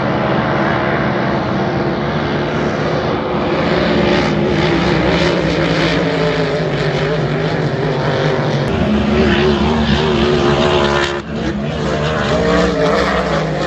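Racing hydroplanes' engines running hard in a steady, wavering drone as the boats race past. The sound breaks off abruptly about eleven seconds in and picks up again at once.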